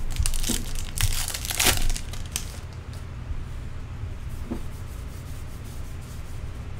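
A 2013 Allen & Ginter trading-card pack wrapper being torn open and crinkled by hand, a burst of rustling that is loudest about one to two seconds in. After that comes quieter handling as the cards are pulled out and flipped through.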